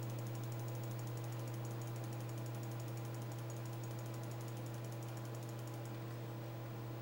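A steady low electrical hum with several steady overtones, overlaid with a faint, rapid, even ticking. It is line noise on the launch commentary's audio feed.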